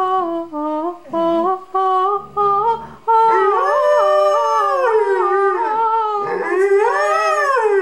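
A woman sings a melody that moves in steps for the first few seconds. From about three seconds in, a dog howls along in long howls that rise and fall in pitch.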